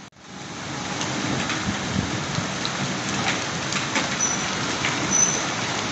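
Heavy downpour of rain and hail on pavement and buildings: a steady dense hiss with scattered sharper taps.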